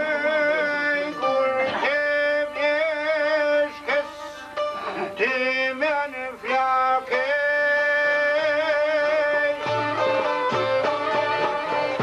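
Albanian folk song: a man sings with wavering, ornamented melody lines, accompanied by plucked long-necked lutes.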